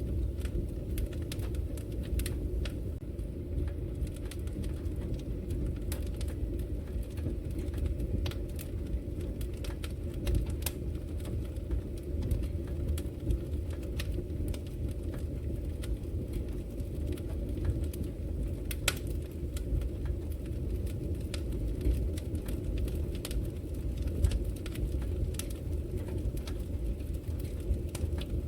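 Fire burning in a fireplace: a steady low rumble with frequent small crackles and pops, and one sharper pop about two-thirds of the way through.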